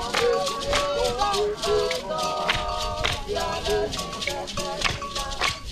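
Ghanaian jama music: a large group singing together over drums and rattling percussion, the strokes falling in a quick, steady beat.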